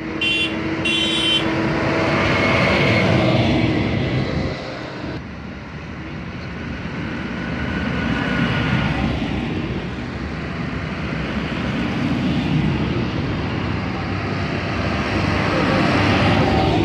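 Large modern farm tractors, New Holland and John Deere, driving past one after another, their diesel engines and big tyres getting louder as each one nears and passes, several times over.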